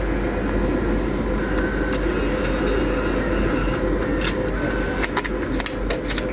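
Steady machine hum of a poker-machine room. About four seconds in come a run of short sharp clicks and rustles as the printed cash-out ticket is pulled from the machine's ticket slot.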